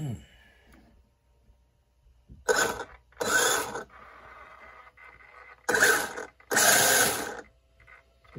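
Traxxas Unlimited Desert Racer's brushless motor and drivetrain whirring in four short throttle bursts, in two pairs, as the wheels spin freely with the truck held off the ground. A fainter whir carries on between the pairs.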